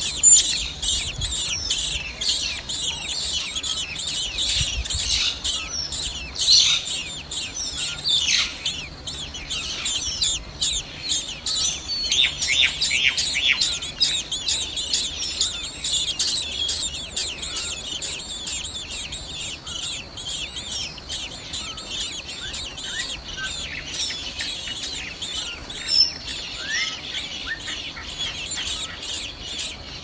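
Common blackbird nestlings begging: a dense stream of short, high-pitched cheeps from several chicks at once, heaviest in the first half and thinning out later.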